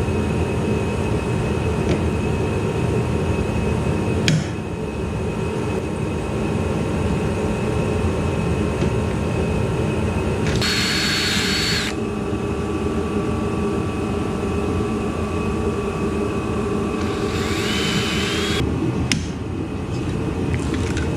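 An electric drill runs in two short bursts about ten and seventeen seconds in, the second spinning up with a rising whine, over a steady whooshing background noise.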